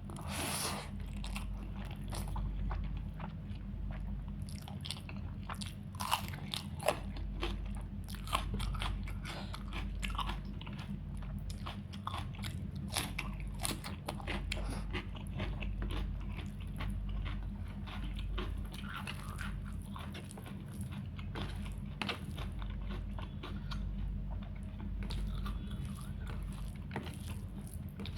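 Close-up eating sounds of a person biting and chewing a meal of chicken curry, rice and salad: many sharp, irregular crunching clicks over a steady low hum.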